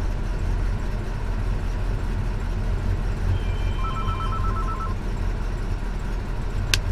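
A truck's engine idling with the AC blower fan on high, a steady low hum inside the cab. About halfway through, a mobile phone rings in a quick trill of high beeps, and there is a single sharp click near the end.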